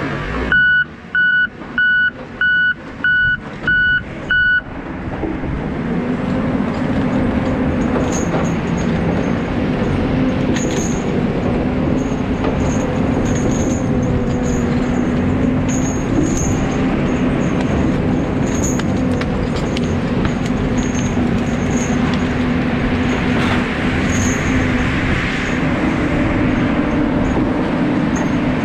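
Tigercat 610E skidder's reversing alarm beeping about seven times, about two beeps a second, as the machine backs up. It stops after about four seconds and leaves the skidder's diesel engine running steadily as it drives, heard from inside the cab.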